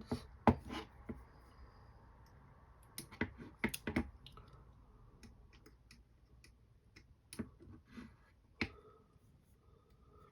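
Scattered sharp clicks and taps of small metal hardware, a screwdriver, bolts and standoffs knocking against a carbon-fibre quad frame, as the standoffs are tightened down. The clicks come in small clusters with short gaps between.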